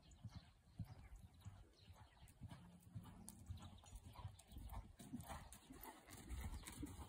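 Faint hoofbeats of a horse cantering on a sand arena surface, a run of soft thuds.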